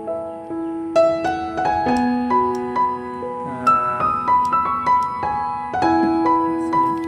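Background music: a gentle piano-like keyboard melody, soft plucked notes one after another.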